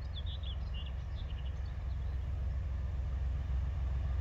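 Distant Class 37 diesel locomotive (its English Electric V12 engine) hauling a test train, a low rumble growing slowly louder as it approaches. A bird chirps several times in the first second and a half.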